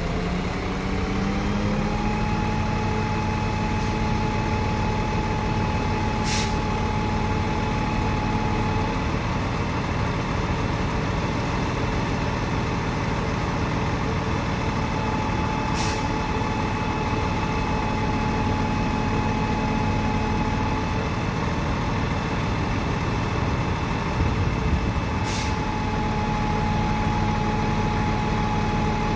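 Scania G 560 truck running while its JOAB L24A hooklift is worked, with a steady hydraulic whine that comes and goes in three stretches as the hook arm moves. Three short hisses of air sound about 6, 16 and 25 seconds in.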